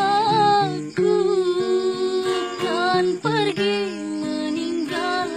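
A young woman singing a slow melody in long held notes that waver, accompanied by an acoustic guitar playing steady chords.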